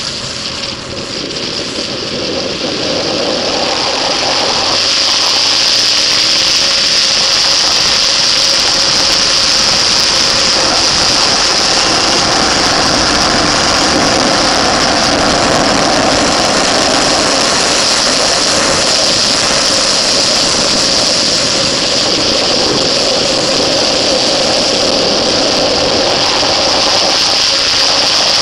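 Onboard sound of a motorcycle engine at speed on a race track, with steady wind rush over the microphone. A few seconds in, the engine note climbs as the bike accelerates hard, then runs loud and steady.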